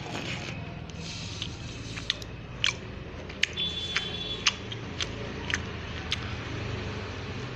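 A person eating a soft, syrupy rasgulla, with a string of sharp, wet mouth clicks about half a second apart over a steady low hum. A short high beep-like tone sounds about three and a half seconds in.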